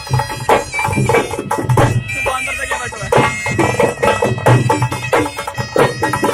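Bagpipe-like music: a steady reedy drone and melody over a driving drum beat.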